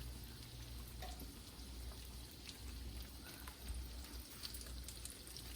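Faint crackling and spitting of hot oil frying breaded green tomato slices in a pan, a light patter of small irregular ticks.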